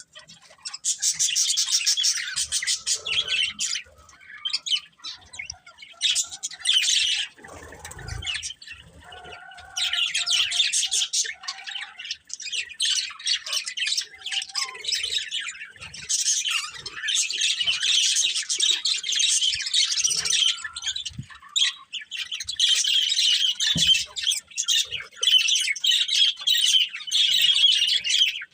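Budgerigars chirping and chattering in fast, high warbles. They come in bursts of a few seconds during the first half, then almost without a break for the second half.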